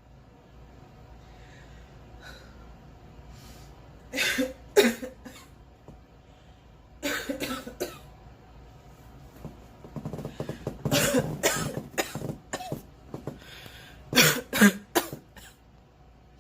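A young woman coughing in fits. There is a pair of coughs about four seconds in, a run of three just after seven seconds, a longer spell of coughing from about ten to twelve and a half seconds, and three more near the end.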